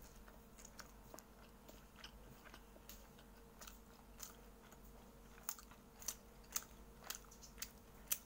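Faint crisp crackles of a fried martabak mie bihun (noodle-filled egg pancake) being torn apart and chewed. In the second half they settle into a clearer crunch about twice a second.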